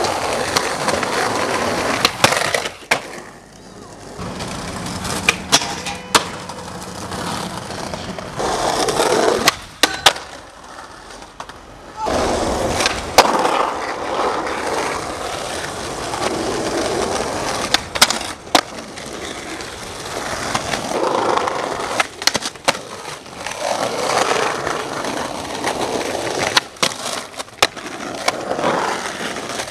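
Skateboard wheels rolling on pavement, broken by repeated sharp clacks as the board is popped and slapped back down on landings.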